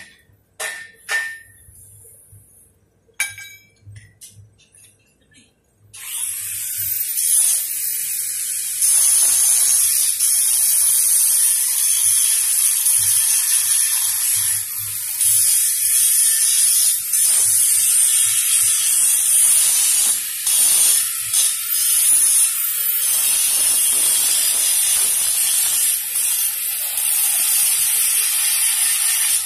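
Stick (shielded metal arc) welding on steel pipe: the arc crackles and hisses steadily, starting about six seconds in, with short breaks where the arc stops and restarts.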